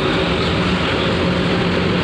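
Heavy engines running steadily with a low hum as a coach bus drives up the steel loading ramp into a roll-on/roll-off ferry, blended with the ferry's own running machinery.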